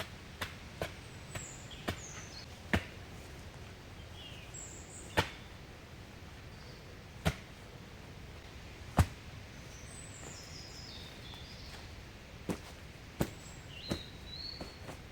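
Irregular sharp taps and clicks, roughly one a second and some louder than others, over a steady outdoor hiss, with small birds chirping in short high calls.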